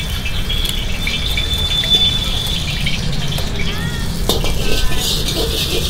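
Cooking oil heating in a large steel wok, crackling lightly as a long steel ladle swirls it around, the ladle clinking against the wok a couple of times.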